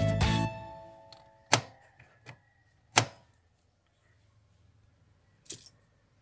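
Background music fading out, then a few sharp clicks and clunks from a Haima's hood release lever being pulled under the dashboard, the loudest about one and a half and three seconds in.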